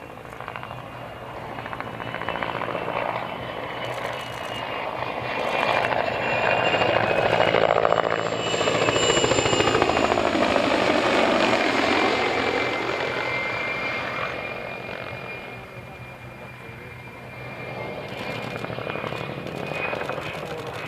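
Mil Mi-2 helicopter flying past low: the whine of its twin turboshaft engines and the chop of its main rotor build to a peak about halfway through as it passes overhead, then fade, the whine dropping slightly in pitch as it moves away.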